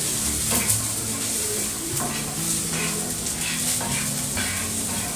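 Green peas sizzling in oil in a non-stick frying pan, with steady frying hiss. A wooden spatula stirs them, scraping across the pan again and again.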